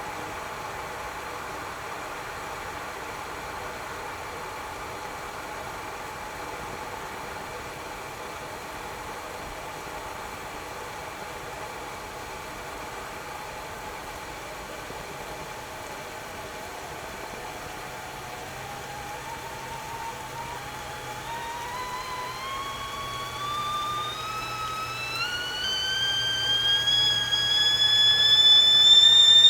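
Whistling tea kettle at the boil: a steady rushing hiss of boiling water, then a little over halfway through the whistle begins faintly and rises steadily in pitch and loudness.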